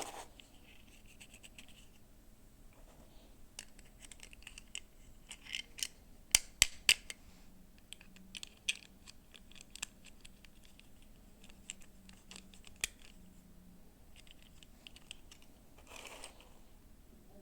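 Small plastic toy pieces and packaging being handled: scattered light clicks and scratchy rustling, with a few sharper clicks about six to seven seconds in.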